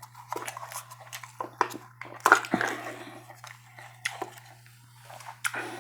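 Close-up chewing and biting of food, with irregular wet mouth clicks and smacks and a couple of louder bites.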